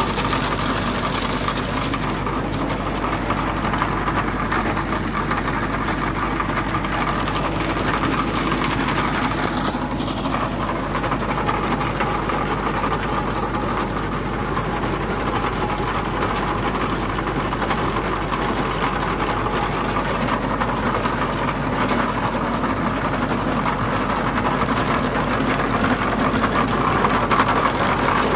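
Tractor engine running steadily under load, driving a tractor-mounted chain trencher whose digging chain chatters as it cuts through soil. It gets a little louder near the end.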